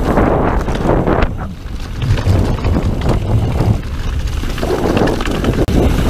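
Wind rushing over the microphone of a camera on a Specialized Demo downhill mountain bike descending a dirt trail, uneven in strength, with the low rumble of the tyres and a few knocks and rattles from the bike.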